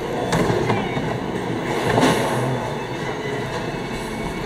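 Steady rumbling background noise of a bowling alley, with a couple of faint knocks about a third of a second and two seconds in.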